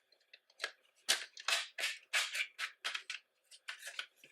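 Paper and plastic album packaging being handled: a quick run of short rustles and clicks, about a dozen, one after another.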